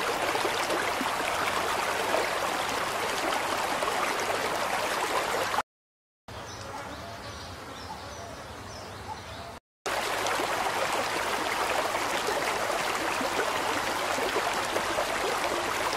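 River water rushing steadily. It is cut off abruptly twice, about six and ten seconds in, with a quieter stretch of the same flow between the cuts.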